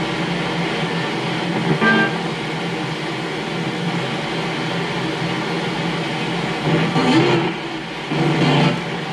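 Ghost-box radios sweeping rapidly through stations, mixed with a radio tuned to white noise and played through a speaker: a steady hiss of static broken by clipped snatches of broadcast audio, louder about two seconds in and twice near the end.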